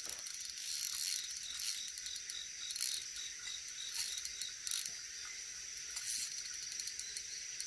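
Insects chirping in a steady, high-pitched chorus, with a few faint clicks.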